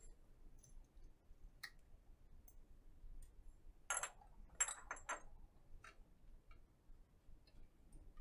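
Faint scattered clicks and taps of a hex driver and small plastic and metal parts being handled while a servo is taken off a small RC helicopter's frame. A short run of several clicks about four to five seconds in is the loudest part.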